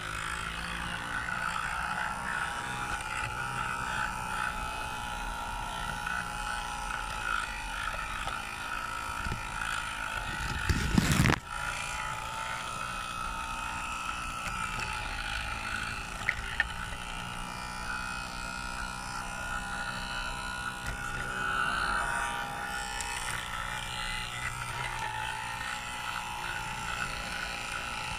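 Garden-railway locomotive running along the track, its drive and running gear making a steady mechanical whir with a constant high whine. About eleven seconds in there is a brief, louder low rumble ending in a knock.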